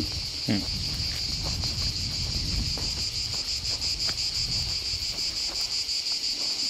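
Steady shrill chorus of cicadas with a fast, even pulsing buzz. Footsteps and rustling on a dirt path below it, with a brief low thump about half a second in.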